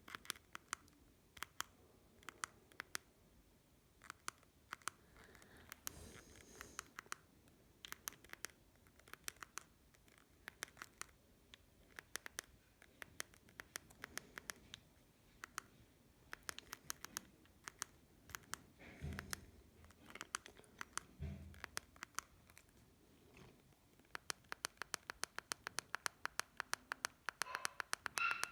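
Keypad buttons of a Doro 1360 mobile phone clicking under repeated presses: single sharp clicks at an uneven pace, with two dull thumps of the phone being handled about two-thirds of the way in.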